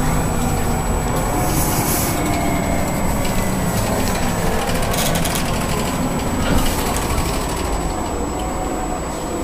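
Inside a Solaris Urbino 18 articulated city bus under way: steady engine and road noise with occasional rattles, and a faint whine that slowly sinks in pitch.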